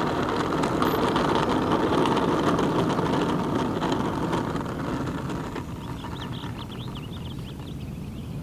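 Electric RC model Cessna 182 (FMS 1500mm foam) rolling along an asphalt runway on its tricycle gear after landing: a steady rushing noise that fades from about five seconds in as the plane slows.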